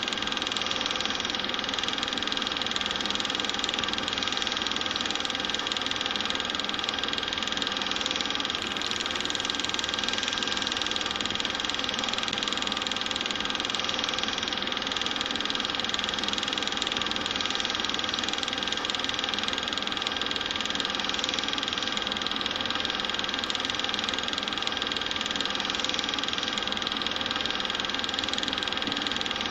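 Steady mechanical running noise of a small motor, with a constant high-pitched whine.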